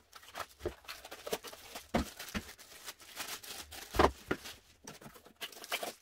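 Cardboard packaging being handled and pulled out of a box, with a plastic-wrapped part lifted out: irregular scrapes, light taps and rustling, with louder knocks about two and four seconds in.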